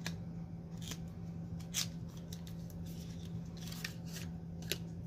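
Small cosmetics packaging being opened: a handful of short, crisp scrapes and clicks of paper or plastic, with a longer rustle a little before the end, over a steady low hum.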